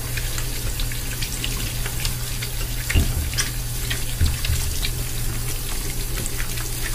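Bathroom sink faucet running a steady stream into the basin while hands rub a bar of soap under it, with many small wet splashes. Two dull knocks about three and four seconds in.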